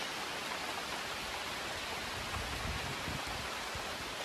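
Steady hiss of rain falling on the surface of a creek, with a brief low rumble a little past halfway.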